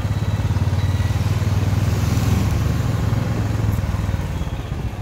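Small motorcycle engine running steadily with a low, fast, even beat, heard from the rider's own bike while it moves along the street.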